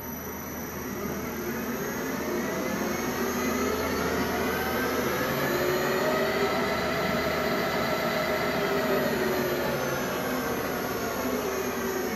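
Metal lathe's three-phase motor and headstock gearing, driven by a VFD, spinning the three-jaw chuck up in forward on an 8-second acceleration ramp. The whir grows louder and its whine rises in pitch over the first several seconds, then eases down slightly. A thin, steady high whine sits on top.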